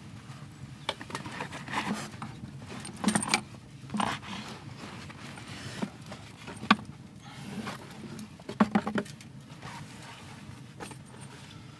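Gear being handled in a wooden crate: a waxed canvas bag with leather straps and metal buckles is lifted out, with scattered clinks of metal fittings, canvas rustling and knocks against the wood, the sharpest knock a little past the middle.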